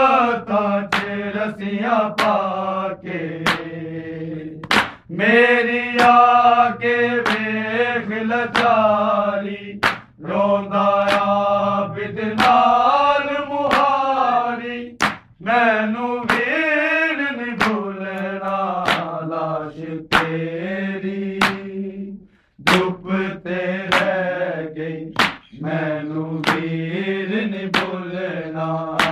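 Men chanting a Punjabi noha, a Shia lament for Muharram, in a drawn-out melody. Sharp chest-beating slaps of matam keep time, about one every three-quarters of a second.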